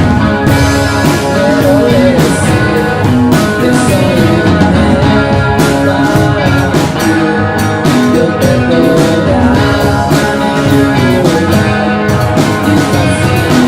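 Rock band playing live: two electric guitars, bass guitar and drum kit, with regular drum and cymbal strikes throughout.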